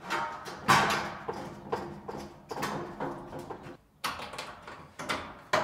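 A sheet of corrugated iron being handled on paving: a series of scrapes and clanks with a brief metallic ring.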